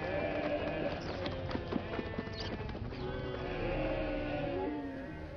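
Hoofbeats of many animals walking, an irregular clatter of steps, over background music.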